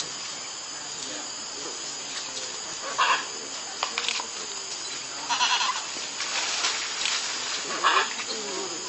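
Three short, high-pitched animal cries a couple of seconds apart.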